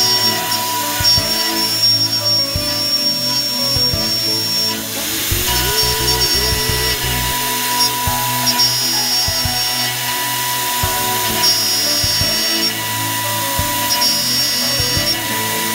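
Background music over a CNC milling machine, whose spindle and end mill are cutting a cavity into a steel die block.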